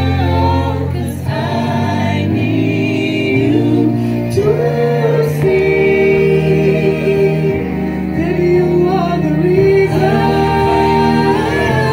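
A small group singing a song together in harmony into microphones, with long held low notes underneath the voices.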